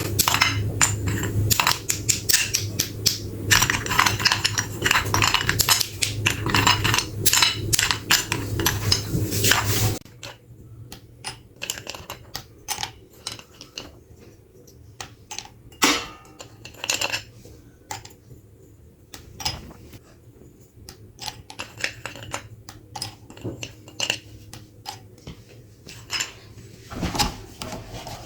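Electric meat grinder running with a steady motor hum, crunching and crackling densely as something hard and brittle is ground. About ten seconds in it drops suddenly to a fainter hum with only occasional clicks.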